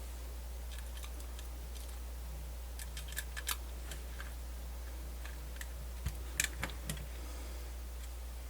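Small clicks and taps of screws and a tiny screwdriver on a MiniDisc Walkman's casing as it is screwed back together, in two short clusters about three and six seconds in, over a steady low hum.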